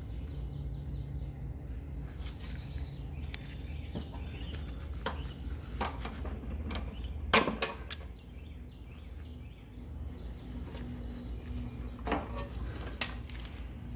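Needle-nose pliers clicking and scraping on the metal cable bracket of a Tecumseh mower engine while the shutoff cable's locking tabs are squeezed free. Two sharp clicks come close together about seven seconds in and two more near the end, over a steady low hum.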